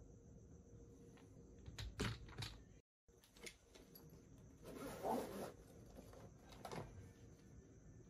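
Asus Vivobook 15 F513E bottom case being pried off with a spudger: the case clips click loose, several sharp clicks about two seconds in, then a short scraping rasp around five seconds in and a couple more clicks near seven seconds.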